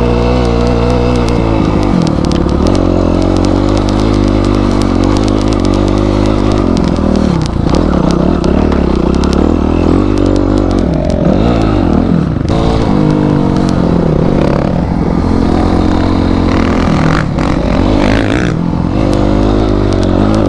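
Motorcycle engine revving up and down while riding off-road, with frequent clattering knocks from the terrain and bike.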